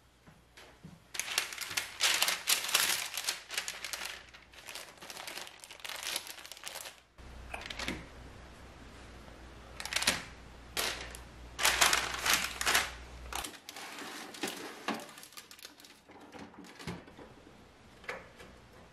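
Baking paper crinkling and rustling as it is handled, in irregular spells with quieter handling noises between them.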